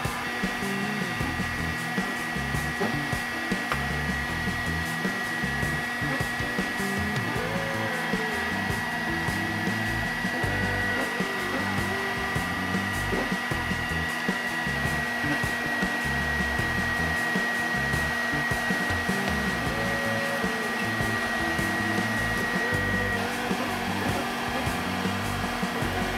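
Large construction heat gun blowing hot air steadily, softening solder to free the ports from a motherboard. A steady high whine sounds over the airflow and stops near the end.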